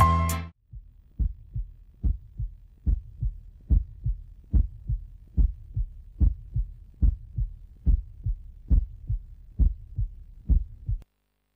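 Heartbeat sound effect: steady paired lub-dub beats, a pair a little under once a second, stopping abruptly near the end. It follows the tail of music cutting off in the first half second.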